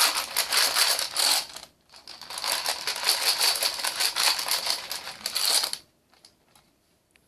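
Loose .22 LR cartridges rattling inside a Lightnin' Grip plastic magazine loader as it is shaken to line the rounds up. There is a short burst, then a longer one of about four seconds that stops about six seconds in, followed by a few faint clicks.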